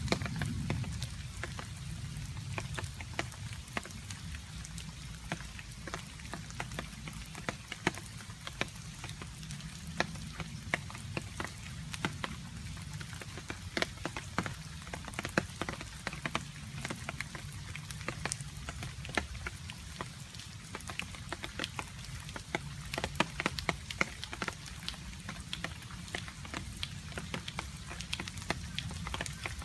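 Rain with water drops dripping: many irregular sharp drip impacts over a steady low rumble.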